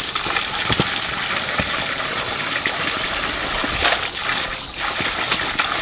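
Steady rushing of running water, with scattered clicks and footsteps on the path.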